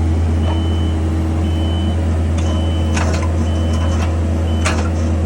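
Heavy machine running steadily with a back-up alarm beeping about once a second, and a few sharp knocks near the middle and end.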